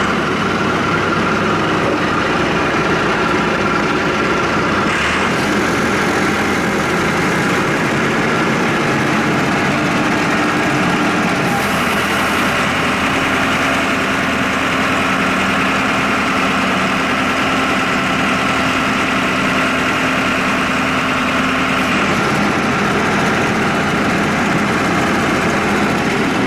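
Mahindra 8560 tractor's diesel engine idling steadily while the loader hydraulics are held against the pressure relief valve at about 2,300 PSI. The steady hum shifts in tone a couple of times as the load on the pump changes.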